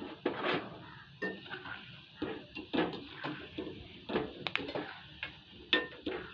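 Steel utensils clinking and scraping: a slotted spoon and a steel plate knocking against the pan about a dozen times, irregularly, over the faint hiss of oil as gulab jamun dough balls deep-fry.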